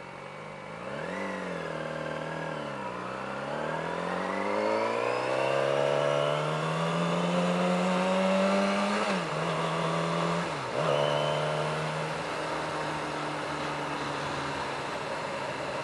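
Motorcycle engine pulling away from a stop. The revs rise and fall a couple of times, then climb steadily for several seconds and drop at a gear change about nine seconds in. After another brief dip near eleven seconds, it settles into a steady cruise.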